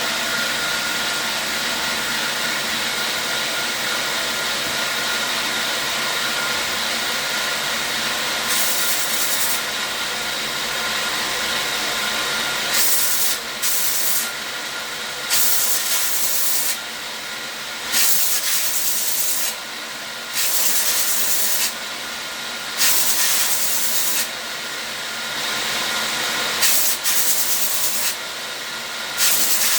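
Old belt grinding machine running steadily with a constant whine, and from about eight seconds in, repeated bursts of hissing a second or two long, the sound of work being pressed against the running abrasive belt.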